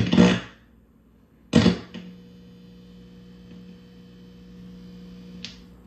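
Small guitar amplifier fed by a homemade tape-head preamp with its ground wire disconnected: sharp crackling pops as the loose wire is handled, then a steady electrical buzz with many overtones from about two seconds in. The buzz is the noise of the missing ground, and a couple more pops come near the end.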